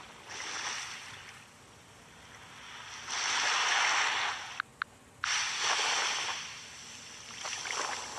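Ocean surf sound effect: waves of hissing wash that swell and fade every second or two. The loudest wave is cut off suddenly about halfway by a brief drop-out with two sharp clicks, and then another wave rolls in.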